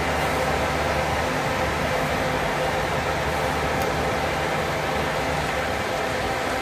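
Intercity coach running steadily at low revs, with a constant engine and air-conditioning hum and no revving.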